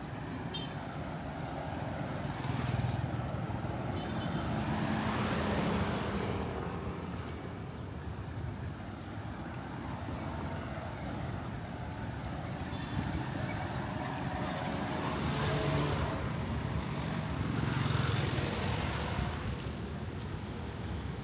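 City street traffic: vehicles passing one after another, a steady rumble that swells as each goes by, loudest about a quarter of the way in and again toward the end.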